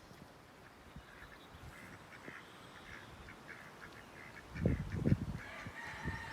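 Ducks quacking, faint at first and more frequent and louder near the end, with a couple of low bumps on the microphone about four and a half seconds in.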